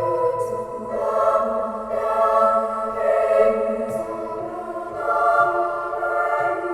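Background music: slow sustained chords with a choir-like vocal sound, changing about once a second.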